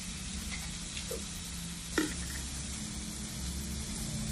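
Food sizzling steadily on a grill pan, with one sharp click about two seconds in.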